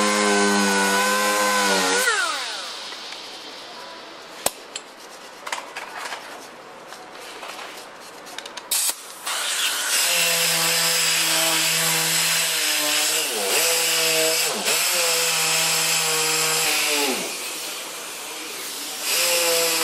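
Air-powered disc sander whining as it sands body filler on a rusted wheel arch. It spins down about two seconds in, leaving a quieter stretch of scattered clicks, then starts up again about ten seconds in, its pitch dipping briefly a few times as it is pressed against the filler. It stops once more and starts again near the end.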